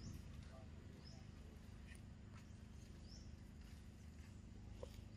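Near silence: quiet outdoor ambience with a low steady hum and a few faint, short high-pitched chirps about a second or two apart.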